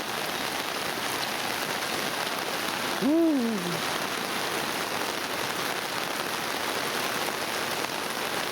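Heavy monsoon rain pouring steadily.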